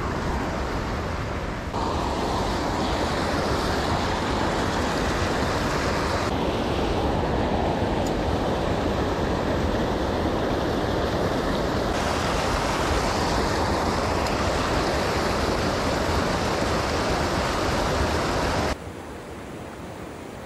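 Rushing water of a mountain river: a loud, steady rush whose tone changes abruptly several times and drops to a quieter hiss near the end.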